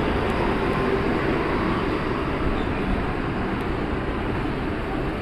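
Passenger train of LHB coaches rolling along the track, a steady rumble of wheels on rails.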